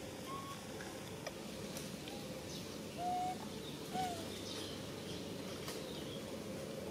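A few short, clear whistle-like animal calls over steady outdoor background noise. The loudest two come about three and four seconds in, the second dropping slightly in pitch.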